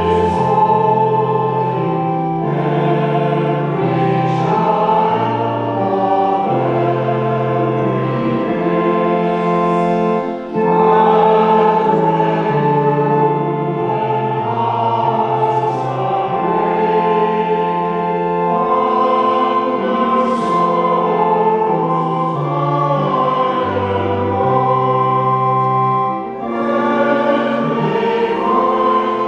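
Congregation singing a hymn to organ accompaniment, with held chords that change every second or two. The sound dips briefly twice, about ten seconds in and again near the end.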